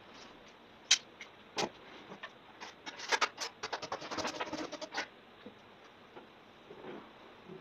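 Hard knocks and scraping from a gypsum plaster wall block being handled and set into place. There are two sharp knocks in the first two seconds, then a quick run of taps and scrapes for about two seconds in the middle.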